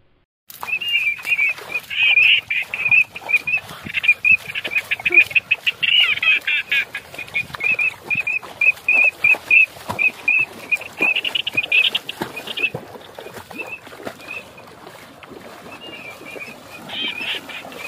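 Birds calling in quick, even series of short high chirps, over splashing as a person wades through shallow water.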